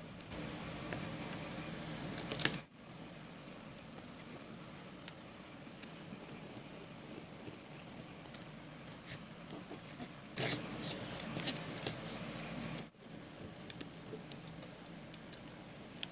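Faint steady high-pitched trill of crickets, with scattered light clicks of wires and a screwdriver being worked on a plastic switch-and-socket board. The background cuts out abruptly twice.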